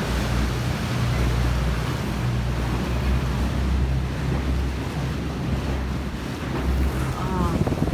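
Motorboat engine running with a steady low drone, under the rush of water along the hull and wind buffeting the microphone.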